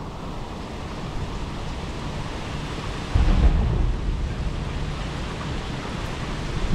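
Hurricane winds blowing hard in a steady rush, with a sudden strong gust buffeting the microphone about three seconds in.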